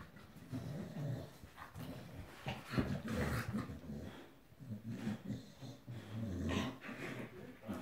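Two dogs growling at each other as they wrestle, a low, uneven rumble with louder outbursts about three seconds in and again past six seconds.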